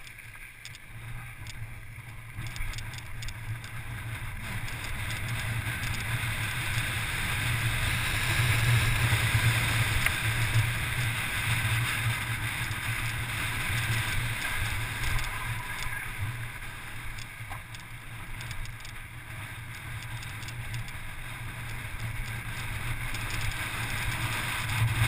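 Wind buffeting the microphone and mountain-bike tyres rolling over loose volcanic gravel during a fast downhill run. The rush swells as speed builds, is loudest about a third of the way in, eases a little after the middle and rises again near the end.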